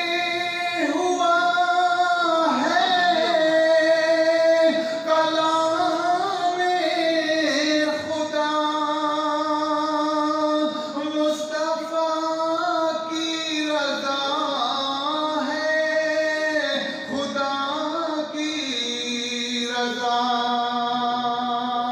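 A man singing a naat, an Urdu devotional poem in praise of the Prophet, solo and unaccompanied, in long held notes with ornamented bends.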